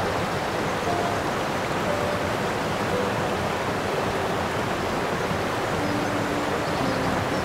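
Steady rushing water noise, even and unbroken, with a few faint soft tones about a second apart, stepping down in pitch.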